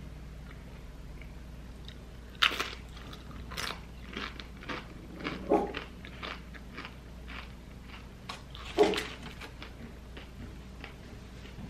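Tortilla chips bitten and chewed close to the microphone: a few sharp crunches, the loudest about nine seconds in, with lighter crackling chews between.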